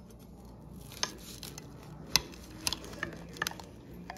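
Chef's knife cutting through a toasted sandwich on a plate: a string of irregular sharp crunches and clicks, the loudest about two seconds in.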